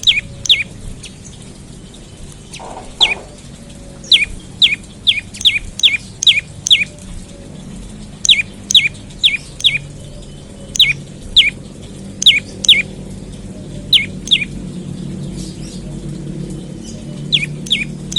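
Prenjak lumut songbird calling: sharp, high, quickly falling notes repeated in fast runs of two to six with short pauses between runs. One brief lower call sounds about three seconds in, over a faint low hum.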